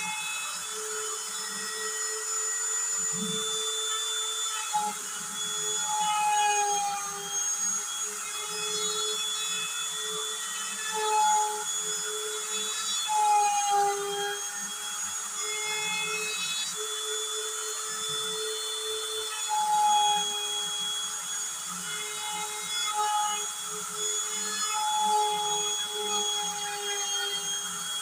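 Handheld router used as the spindle of a DIY CNC machine, running at high speed and cutting a pattern into an MDF panel: a steady high whine over cutting noise. A few times the whine sags in pitch and gets louder as the bit takes a heavier cut.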